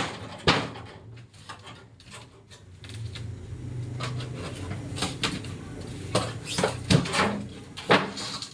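Irregular knocks and clatter of parts being handled while a two-door refrigerator's body is taken apart, with a low hum in the middle stretch.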